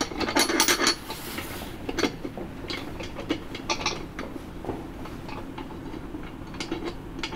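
Small metallic clicks and clinks of brass nuts and fittings being handled and threaded by hand into the top of a brass ship light, with a quick run of clicks in the first second, a short scrape just after, then a few scattered clicks that thin out.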